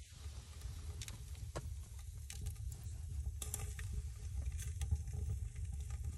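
Wood stove fire crackling, with irregular small pops and clicks over a low, steady rumble.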